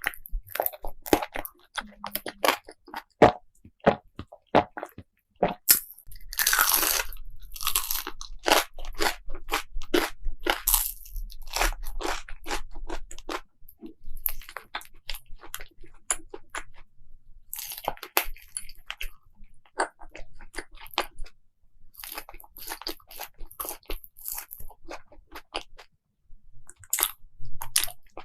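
Close-miked eating: someone biting and chewing crunchy food, a rapid, irregular run of sharp crunches, densest in the middle stretch.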